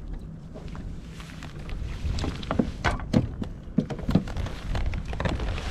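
A run of sharp knocks and thunks on a fishing boat, most of them in the second half, over a low steady rumble.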